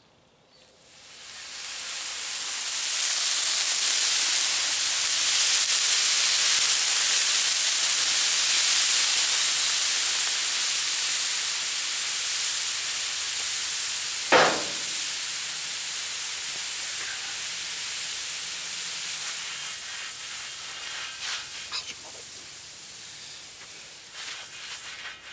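Vodka sizzling and hissing as it boils off in steam on a hot steel disc-blade wok, cooking off to sanitize the freshly cleaned pan. The hiss swells over the first few seconds, then slowly fades, and a short falling squeak cuts through about halfway.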